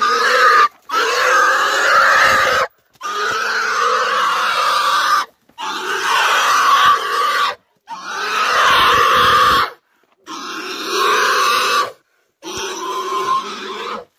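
Black pig squealing in distress as it is restrained on a rope and forced along: long, loud screams of one to two seconds each, about seven in a row, with short breaths between.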